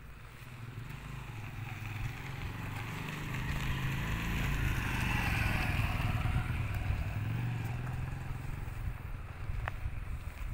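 A motor vehicle engine runs with a low rumble. It grows louder to a peak about five to six seconds in, then eases off a little.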